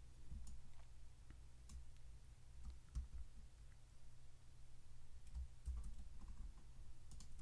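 Faint, scattered clicks from a computer mouse and keyboard, a few over several seconds, over a low steady hum.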